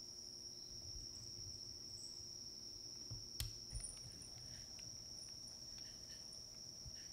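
Faint crickets trilling in one steady high tone, with fainter intermittent chirps above it. A sharp click and a few soft thumps about halfway through.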